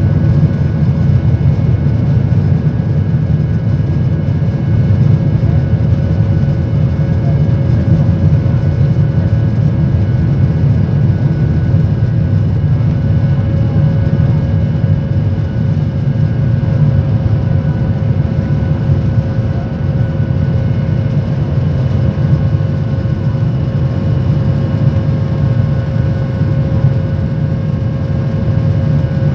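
Cabin noise inside a Boeing 737 jet airliner climbing after takeoff: the jet engines and rushing air make a steady, loud low rumble, with a few faint steady hum tones over it.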